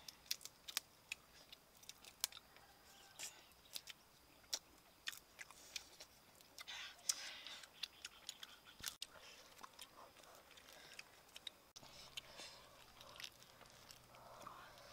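Quiet eating sounds: scattered small clicks, cracks and chewing as two people pick at and eat food with their fingers.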